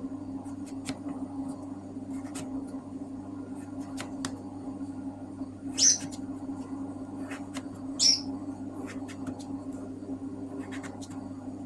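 A caged pet bird gives two sharp, high chirps, about 6 and 8 seconds in. Beneath them run a steady low hum and light scattered clicks.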